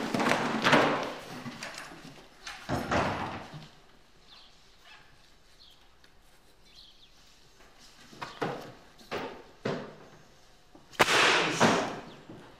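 Wooden knocks and thuds of desks and benches as a class gets to its feet, then a quiet stretch. A few single footsteps on a wooden floor follow, and near the end a louder clatter as things are set down on a wooden desk.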